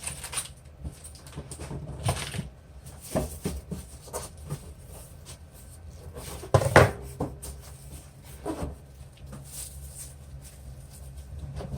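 Handling noise of unpacking: scattered knocks and rustles as items are taken out of the box and set down, the loudest knock a little past halfway.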